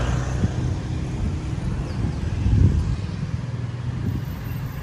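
Street traffic noise, a motor vehicle running nearby, briefly louder about two and a half seconds in.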